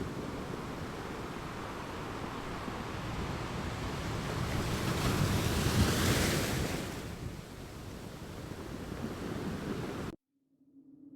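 Ocean surf washing in, one wave building and breaking about halfway through. The sound cuts off suddenly near the end, giving way to a faint low steady hum.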